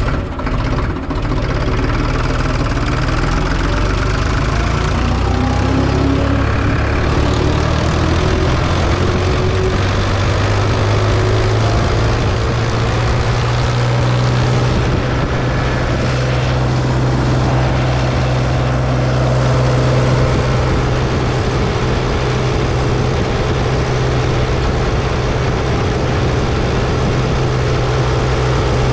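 Ford 3600 tractor's three-cylinder engine running while the tractor drives along, heard close up. The engine note rises as it picks up speed over the first dozen seconds or so, then holds steady.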